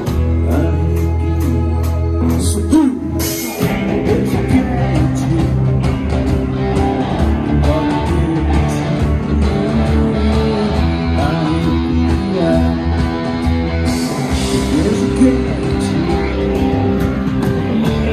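A rock band playing: electric guitars, bass and drums, with some singing. A held low bass note gives way to a short break about three seconds in, and then the band plays on with a steady driving beat.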